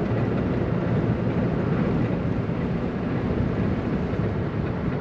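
Honda Fit heard from inside the cabin under light throttle going uphill: a steady engine and road drone, with the intermittent rattle that comes on when it is given a little gas. The owner suspects a loose exhaust heat shield or old transmission fluid.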